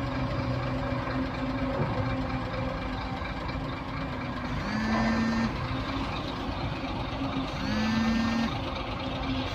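Diesel engines of an excavator and dump trucks running steadily, with a horn-like warning tone sounding twice, each about a second long, around five and eight seconds in.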